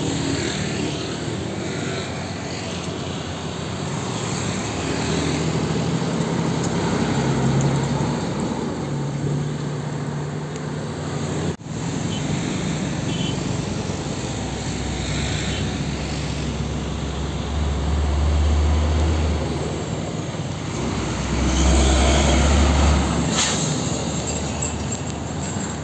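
Heavy diesel trucks driving past amid road traffic, a steady engine drone under tyre and traffic noise that swells twice in the second half as a truck passes close. A short sharp noise comes near the end.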